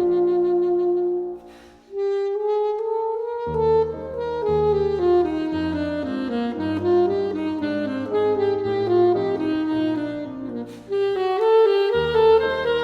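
Classical saxophone playing a melody with piano accompaniment, broken by a short pause about a second and a half in and a brief break near the end.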